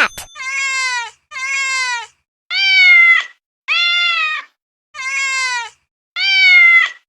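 Domestic cat meowing six times, one drawn-out meow about every second. A sharp click sounds at the very start.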